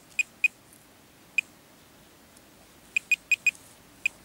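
Minelab Pro-Find 25 pinpointer giving short, high-pitched beeps at irregular intervals: two close together, one alone, then a quick run of four near the end. It is held over a buried target that it picks up only a little.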